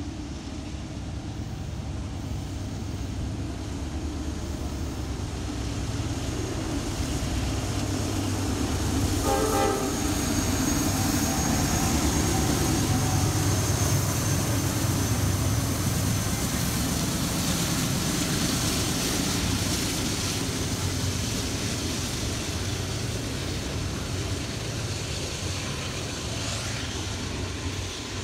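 Norfolk Southern freight train with two diesel locomotives on the head end, growing louder as the locomotives approach and pass, with a brief horn toot about nine seconds in. Then the steady rolling of double-stack intermodal cars going by at about 23 mph.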